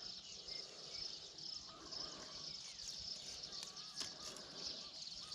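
Insects chirring steadily in a dense, high chorus, with a few faint short wavering whistled calls and a light click about four seconds in.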